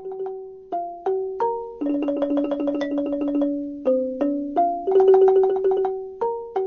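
Short instrumental music interlude on a mallet percussion instrument like a marimba: single struck notes that ring and fade, broken twice by fast repeated notes held as rolls.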